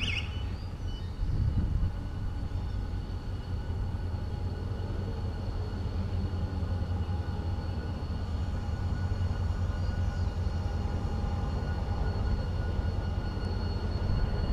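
Diesel locomotive running with a steady low rumble and a steady high whine as it brings a passenger train slowly into a station platform.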